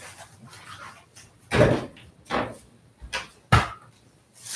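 A few knocks and thumps of objects being handled and set down. There are four in all, the loudest a little over a second and a half in and another sharp one about three and a half seconds in.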